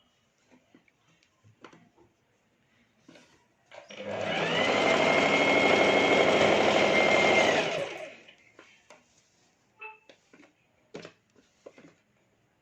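Sewing machine stitching in one run of about four seconds: it speeds up about four seconds in, runs steadily, and stops just before eight seconds. Light clicks and fabric handling come before and after the run.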